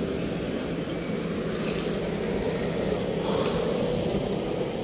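Steady low rumble of engine noise from passing road vehicles.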